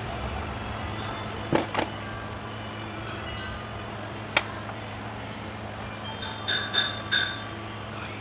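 Metal front-axle gear case of a Kubota B1502 being handled and offered up to the axle end, knocking and clinking against the metal: three single knocks, then a quick cluster of ringing metallic clinks about six and a half seconds in, over a steady low hum.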